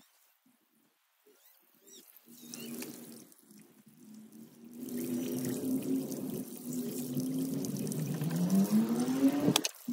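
Tap water running and splashing onto clothes in a concrete washing sink as they are wrung and rinsed by hand, starting almost silent and growing louder after a few seconds. Under it runs a steady droning hum that climbs in pitch near the end.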